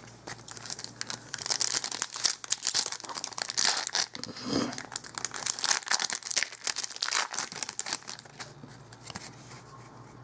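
A hockey card pack's wrapper being torn open and crumpled by hand: a dense run of crinkling and tearing crackles from about a second in, thinning out near the end.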